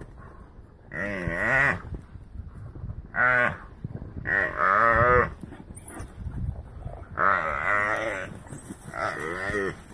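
An oryx bellowing in distress as it is attacked by African wild dogs: five drawn-out, moaning bleats, each under a second long, with short gaps between them.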